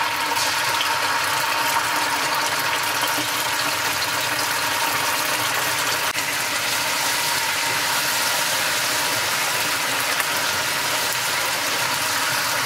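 Chunjang (Korean black bean paste) frying in oil in a pan, a steady sizzle while it is stir-fried.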